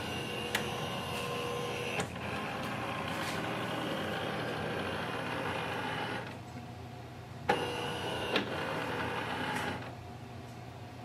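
HP LaserJet Pro MFP 3101fdw flatbed scanner running as it scans the first side of an ID card: a steady mechanical hum with a few high whining tones. It drops away about six seconds in, starts again with a click a second or so later, and stops near the end.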